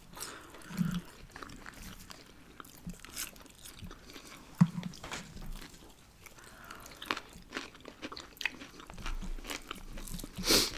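Close-up chewing and biting of food: scattered wet clicks and crisp crunches, with one louder crunch near the end.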